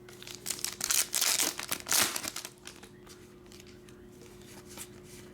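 A trading card pack's wrapper crinkling and tearing as it is opened by hand, in a few quick crackly bursts over the first two seconds, then quieter handling with only a faint steady hum.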